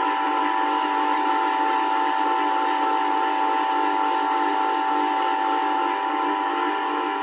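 Bench grinder running steadily with a honing wheel fitted, its motor giving a high, even whine.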